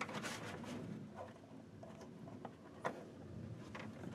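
Faint clicks and rustling of a hand rivet tool and a stiff plastic patch being handled while a rivet is pushed through the plastic, with a sharper click near the end.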